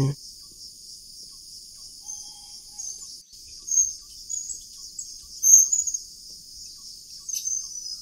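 Steady, high-pitched insect chorus, with several brief high chirps over it; the loudest chirps come about 4 and 5.5 seconds in.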